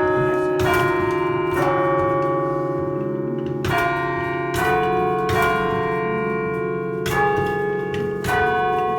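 Church bells of a thirteen-bell chime cast by John Taylor & Co in 1939, chiming one note after another at different pitches, about seven strikes with a short pause after the first two. Each bell rings on under the next, so the notes overlap.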